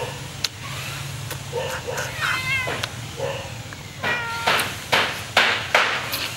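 Animal calls: a few short, wavering, meow-like cries, then four loud, harsh cries in quick succession in the last two seconds.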